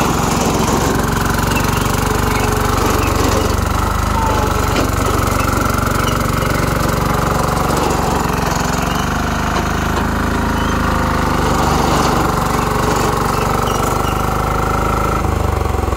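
Yanmar C10R crawler dumper's 10-horsepower diesel engine running steadily while the machine moves on its tracks and tips its dump bed over to the side. The engine note changes near the end.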